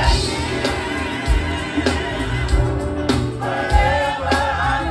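Live gospel music: a choir singing over a band with bass and drums.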